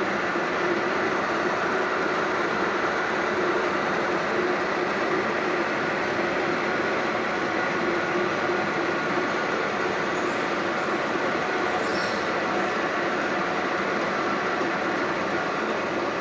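Milling machine running steadily: a continuous mechanical noise with a few constant tones in it and no change in speed or load.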